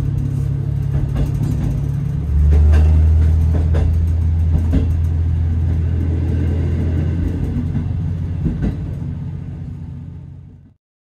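Diesel engine of a KiHa 54 railcar running under power, heard from inside the moving train, with a steady low drone. About two seconds in the engine note steps up louder, then slowly eases off, with scattered clicks and knocks from the wheels on the track. The sound fades out near the end.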